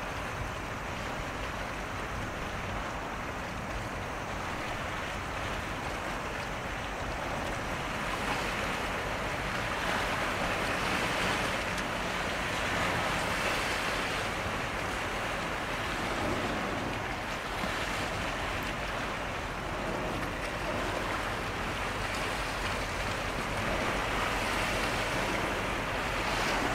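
Steady rushing of wind and sea water, swelling gently around the middle and again near the end.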